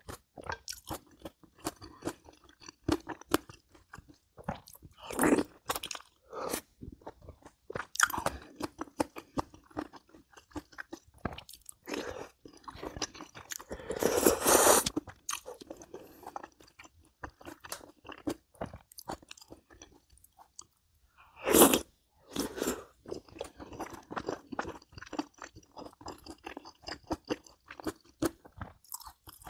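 A person eating close to the microphone: steady chewing and crunching, made of many short clicks, with a few louder, longer bursts, the longest about halfway through.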